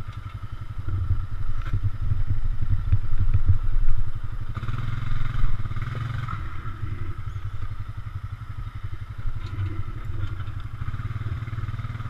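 ATV engine running while the quad is ridden over a rough wooded dirt trail. It pulls harder and louder from about a second in to about four seconds, then settles back to a steady low run, with some rattling of the machine over the bumps.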